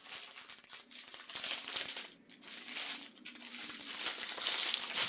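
Small plastic bags of diamond-painting drills crinkling in uneven bursts as they are handled and sorted.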